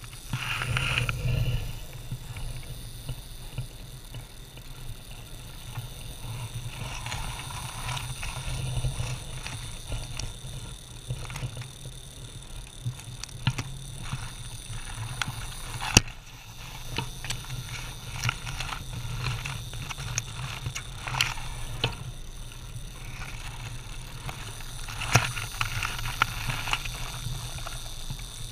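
Eastern diamondback rattlesnake rattling with a steady buzz right at the camera. Sharp knocks against the camera housing come now and then as it strikes, the loudest about sixteen seconds in.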